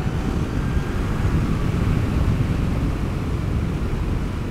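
Steady wind rush and tyre noise from a Zero DSR electric motorcycle travelling at road speed, with no combustion engine note.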